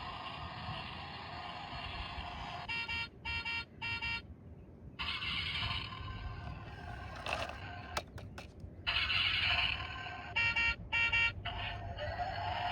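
Electronic engine sound effect of a toy backhoe loader running. It is broken by short cut-outs and by two quick runs of beeps, and a rising whine comes near the end.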